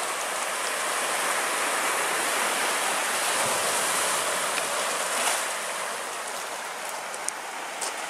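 Surf of a rough Black Sea: waves rushing and washing onto the shore in a continuous noise that swells slightly midway and eases toward the end.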